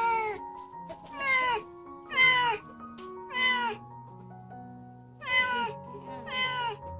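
A stray cat meowing loudly and repeatedly while being bathed, about six meows that each fall in pitch, with a short gap before the last two. Background music plays underneath.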